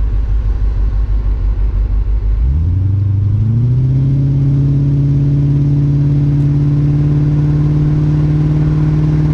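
Aston Martin V8's 5.3-litre V8 engine and exhaust, heard from behind the moving car: a deep, pulsing note at low revs that rises in pitch between about two and four seconds in as the car accelerates, then holds a steady drone.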